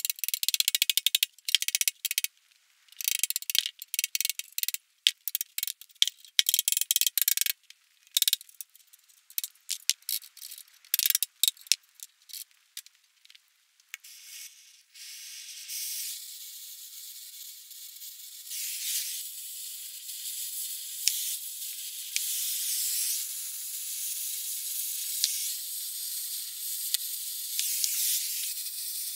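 Gas cutting torch work on the plow's steel frame. About the first half is a run of sharp, irregular crackles and rattles; from about halfway the lit torch hisses steadily.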